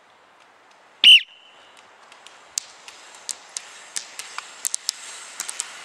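Ski pole tips clicking on asphalt as a group of classic roller skiers pole toward the microphone, the clicks growing louder and more frequent over a rising hiss of rolling wheels. About a second in, one short, loud, high-pitched whistle-like cry is the loudest sound.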